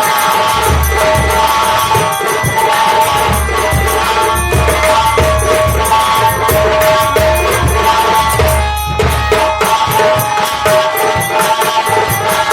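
Nautanki folk music played by an instrumental ensemble: a held, droning melody over a fast, even low drumbeat, with jingling metal percussion ticking on top.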